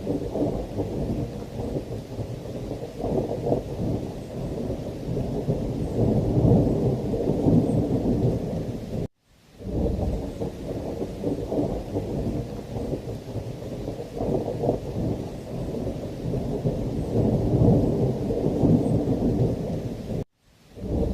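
Thunderstorm ambience: a continuous low, rolling thunder rumble over heavy rain, swelling and easing. The sound cuts out to silence for a moment about nine seconds in and again near the end, then resumes.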